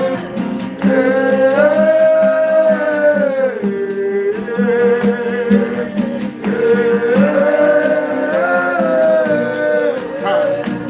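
Worship song: a voice sings long held notes with no clear words, over a steady acoustic guitar accompaniment.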